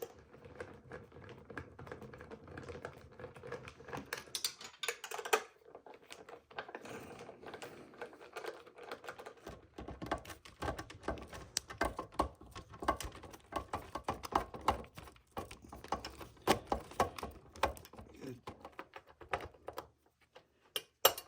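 Irregular quick metallic clicks and taps of a hand wrench and loose hardware as a 10 mm nut is worked off a dirt bike's frame, with a louder flurry near the start and a denser run of clicks in the second half.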